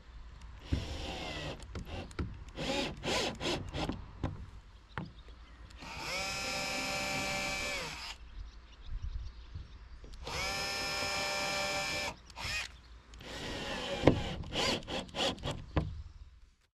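Cordless drill-driver running in bursts on the boat's cabin top: short stop-start runs, then two steady runs of about two seconds each that spin up and stop, then more short runs. A sharp click about fourteen seconds in.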